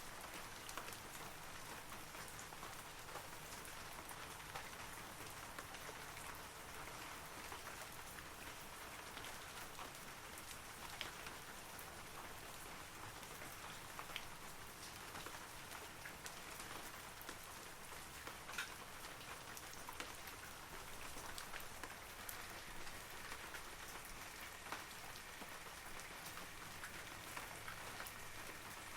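Steady rain falling on forest foliage, a continuous patter with scattered distinct drops ticking through it.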